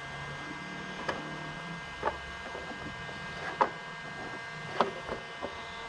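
A few light, scattered clicks and taps of a small screw and fingers against the plastic blower motor resistor housing as the screw is started by hand, over a faint steady low hum.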